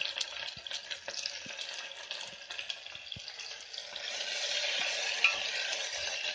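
Sliced onions sizzling in hot oil in a pressure cooker. From about four seconds in, a metal spoon stirs them, the sizzle grows louder, and the spoon clicks against the pot.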